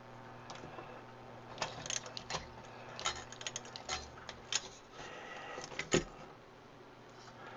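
Handling of a DVD/VHS combo player's circuit board and chassis: scattered light clicks and taps, with a sharper knock about six seconds in as the board is lifted off the tape mechanism, over a faint steady hum.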